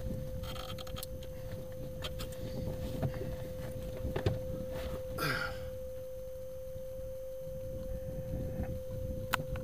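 A steady single high tone over an uneven low rumble, with a few sharp clicks and a brief rustle about five seconds in.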